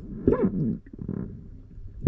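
A short, low, moaning voice-like sound that rises and falls in pitch, muffled as if heard underwater, followed by fainter pitched traces.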